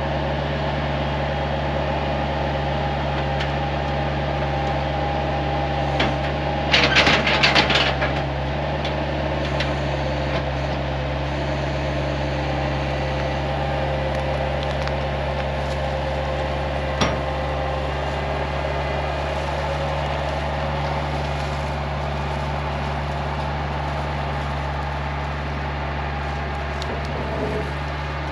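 A steady mechanical hum from a running motor, with a short rattling clatter about seven seconds in and a single sharp click later.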